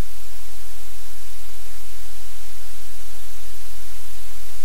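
Loud, steady hiss like white noise or static, unchanging throughout, with nothing else standing out.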